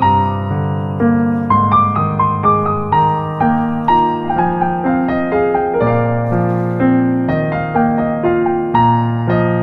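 Background music: a gentle electric piano melody of evenly paced notes over sustained low bass notes.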